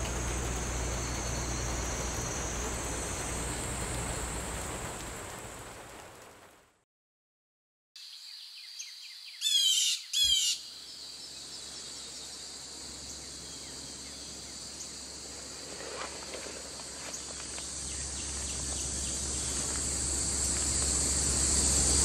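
Steady rain hissing around an open shelter, fading out after a few seconds. Then evening insects chirring in a steady high drone that slowly grows louder, with two short, loud bird calls about ten seconds in.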